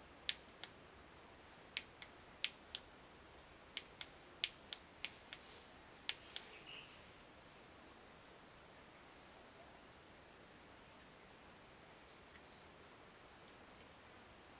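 Small LED flashlight's switch clicking, about fourteen short sharp clicks, mostly in quick pairs, as the repaired torch is switched on and off.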